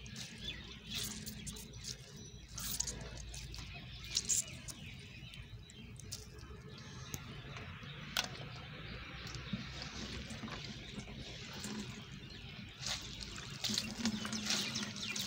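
Water trickling and dripping out of boiled moringa flowers squeezed by hand over a perforated steel colander, with scattered small splashes and ticks.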